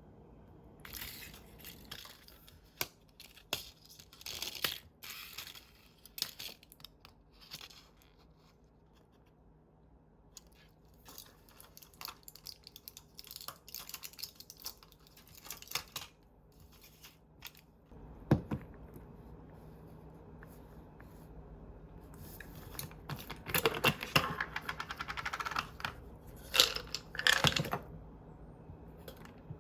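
Hands handling and tearing packaging: scattered clicks and crinkles, a single thump about eighteen seconds in, and a dense burst of crinkling and tearing near the end.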